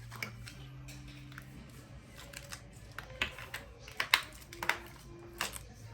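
Irregular sharp clicks and taps of small plastic parts being handled, starting about two seconds in and loudest around the fourth second, over a low steady hum.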